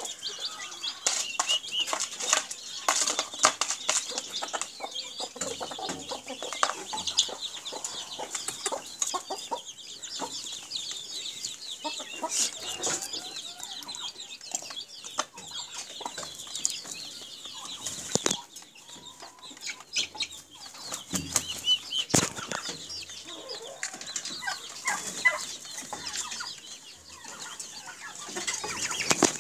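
A small flock of naked neck chickens clucking, with high cheeping and many sharp clicks throughout.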